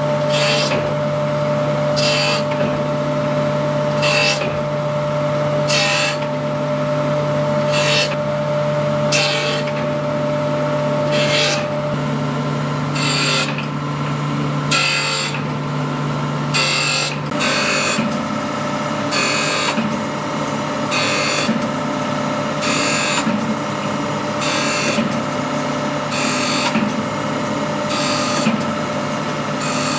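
Surface grinder grinding a flat steel knife blank: a steady motor and spindle hum, with a short hiss of grinding each time the abrasive wheel passes over the steel, about once a second at first and coming faster in the second half.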